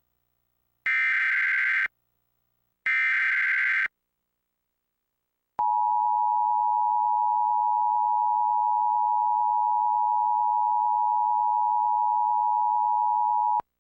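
Emergency Alert System test opening: two one-second bursts of SAME digital header data, a second apart, then after a short pause the steady two-tone EAS attention signal, held for about eight seconds before it cuts off.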